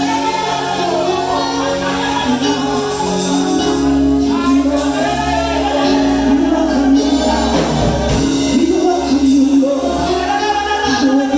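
Gospel praise music with singing over a steady bass line and tambourine.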